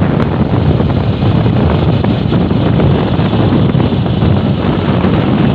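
Wind rushing over the microphone of a vehicle moving at highway speed, with road and engine noise beneath: a loud, steady, low-heavy rumble.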